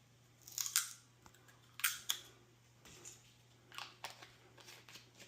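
A plastic rinse aid bottle being opened by hand: short crackling, snapping clicks of the cap and plastic, loudest about half a second in and twice near two seconds, with smaller ones near three and four seconds.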